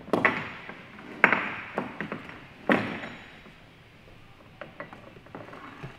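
Sharp mechanical clacks, four loud ones with a short ring in the first three seconds, then a run of lighter ticks and taps near the end.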